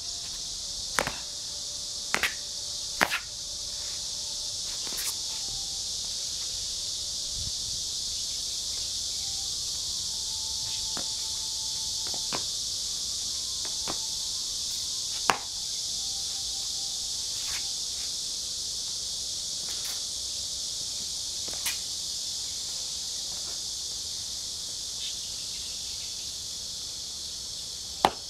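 Steady, high insect chorus, broken by sharp stamps and slaps from a person practising a Xingyiquan form on concrete: three or four in quick succession in the first few seconds, then single ones spaced several seconds apart, the last near the end.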